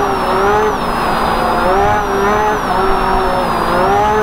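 UTV engine heard from inside the cab while driving on a dirt track. Its revs fall and pick up again about three times, over steady rough tyre and terrain noise.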